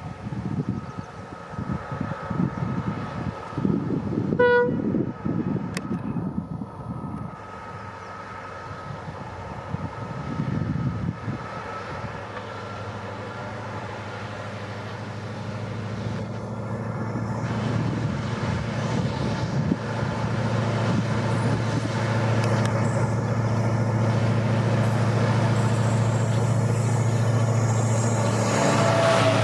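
WDP4D diesel locomotive's EMD 16-cylinder two-stroke engine approaching with its train: a steady low drone that swells over the second half as it draws near. A short horn toot sounds about four seconds in, and gusty wind noise fills the first dozen seconds.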